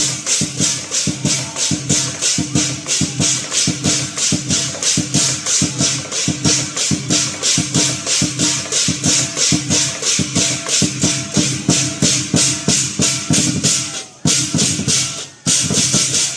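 Lion dance percussion: a drum and crashing cymbals beating a fast, even rhythm of about four strokes a second, with two brief breaks near the end.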